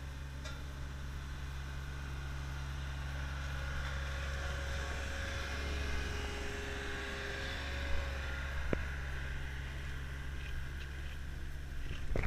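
Road-paving machinery running: the steady low hum of the asphalt paver truck's engine and a small road roller, growing slowly louder as the machines draw near. A sharp click sounds about three-quarters of the way through.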